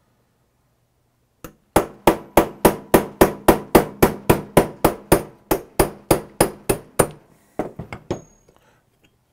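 Small hammer striking a 1/16-inch roll pin punch, metal on metal, to drive a roll pin out of a Springfield XDM pistol slide. After a single tap it strikes in an even run of about four blows a second for some five seconds, then gives a few lighter taps.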